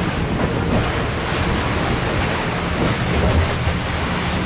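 Strong wind rushing and buffeting the microphone over the sound of waves around a sailing catamaran, a steady unbroken rush as a rain squall closes in.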